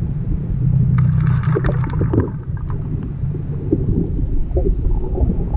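Underwater audio from a swimming camera: a steady, muffled low rumble of water moving against the camera housing. Gurgling bubbles come in about a second in and fade out by about two seconds.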